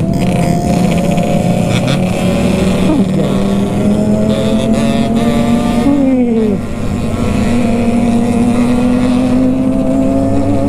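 Kawasaki Ninja ZX25R inline-four with an aftermarket racing exhaust, running under way, heard from the rider's seat. Its pitch holds steady, drops sharply about six seconds in, then climbs slowly as the bike pulls again.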